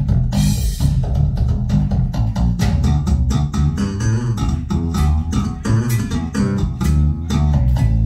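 Recorded rock or pop music with bass guitar, guitar and drums, played back loudly over Dutch & Dutch 8c loudspeakers in the listening room, with a bright cymbal crash about half a second in.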